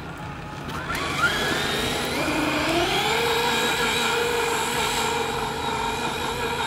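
High-speed RC car's electric motor whining under the load of towing a person on roller skates. The pitch rises for about two seconds as it speeds up, starting about a second in, then holds steady.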